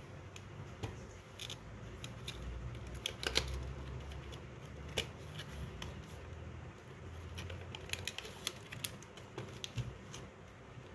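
A small cardboard box being opened by hand and a clear plastic tray slid out of it: irregular sharp clicks and crackles of card flaps and plastic, with rubbing and handling noise.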